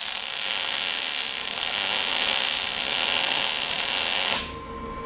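Wire-feed (MIG) welding arc crackling and sizzling steadily as a bead is laid, stopping abruptly about four seconds in when the trigger is released.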